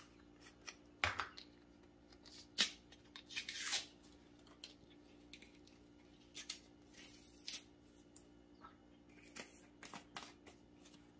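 Faint handling sounds of a plastic spice jar of cumin being opened: scattered clicks and short scrapes of the cap and lid, the longest scrape a little over three seconds in.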